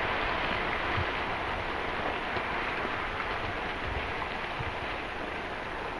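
Pyroclastic flow of rock and ash avalanching down the volcano's slope: a steady rushing noise that eases slightly toward the end.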